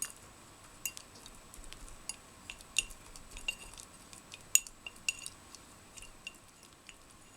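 Irregular light clinks of a tool stirring and working gauze in PVA glue tinted with paint, knocking against the sides of a small container, each clink ringing briefly.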